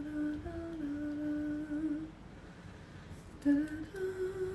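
A woman humming a slow tune in long held notes, breaking off for a moment about two seconds in before humming again.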